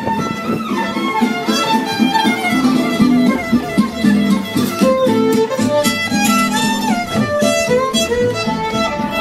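Fiddle music: a violin playing a quick, lively melody over guitar accompaniment.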